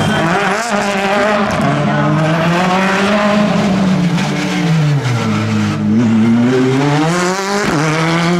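Hyundai rally car engine revving hard on a tarmac course, its pitch sweeping up and down with throttle and gear changes. The pitch sinks about five seconds in, climbs again, and drops sharply near the end.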